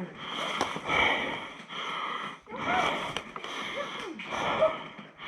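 A person breathing hard after exertion: three or four loud, rasping breaths close to the microphone.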